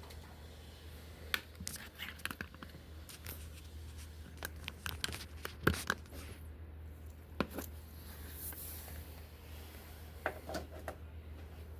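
Hands handling a 12-volt accessory plug at its socket: scattered clicks and scrapes of plastic, the sharpest a little past halfway, over a steady low hum.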